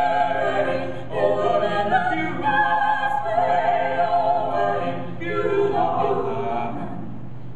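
A vocal quartet of two women's and two men's voices singing in harmony. The phrases break briefly twice, and the last chord is held and then released about a second before the end, closing the song.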